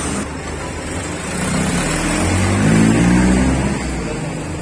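A motor vehicle engine running, growing louder and higher in pitch about two seconds in, then easing back after about three and a half seconds.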